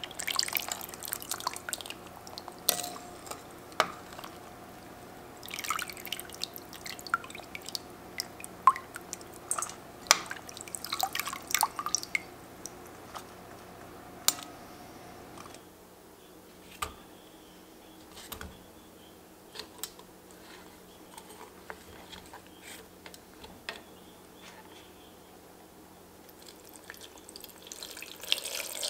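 Metal tongs lifting soaked dried chiles out of a glass bowl of soaking liquid: drips and small splashes with clicks of the tongs against the glass, thinning out after the middle. Near the end, liquid poured into a blender cup.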